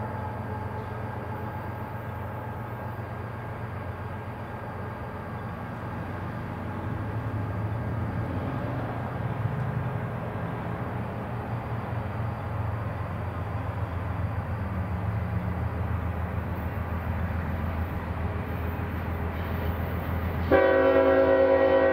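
CSX freight train passing: a steady low locomotive rumble with rail noise, growing a little louder partway through. Near the end the locomotive's air horn sounds loudly.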